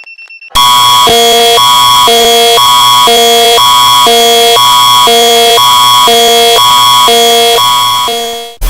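Canadian Alert Ready emergency alert attention tone, very loud and harsh, switching back and forth between two chords about once a second and fading out near the end. It starts about half a second in, cutting off faint rapid high beeping.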